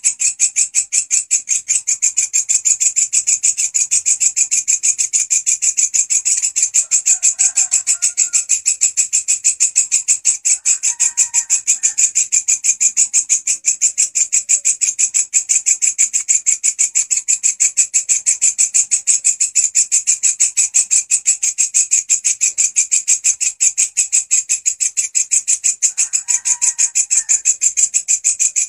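Walang kecek bush cricket stridulating in a steady, very fast, high-pitched pulsed buzz, with a few faint bird chirps underneath.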